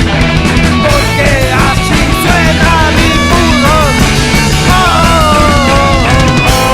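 Punk rock band playing an instrumental passage: an electric guitar lead with bent, wavering notes over bass and drums, turning to sustained ringing chords at the very end.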